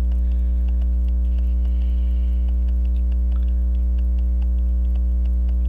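Loud steady mains hum, with faint quick, even ticking from the freshly restarted Waltham pocket watch movement's escapement beneath it.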